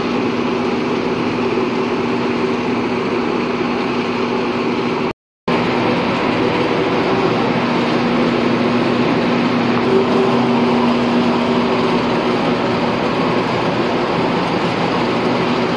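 Coffee wet-mill machinery running steadily with a constant motor hum, mixed with water gushing from a pipe onto washed coffee beans. The sound cuts out for a moment about five seconds in.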